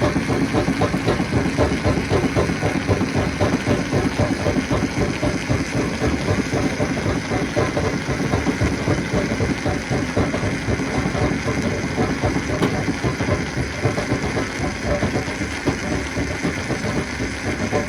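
Stone crusher machinery running steadily: a continuous heavy engine drone with a dense, rapid rattle throughout.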